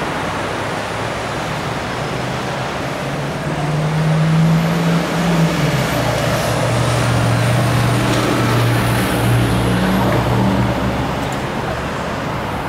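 Midtown street traffic: a steady wash of passing cars, with the low drone of a heavy vehicle's engine loudest in the middle, from about 3 s to 11 s, dropping in pitch partway through.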